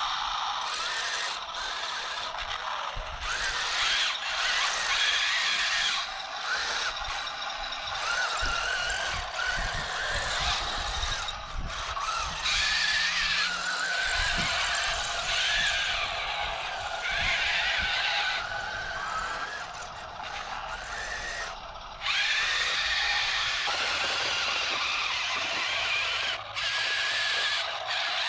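Small electric drive motors and plastic gearboxes of toy RC battle tanks running, giving a wavering whine with rattling that drops out briefly now and then as the tanks stop and start.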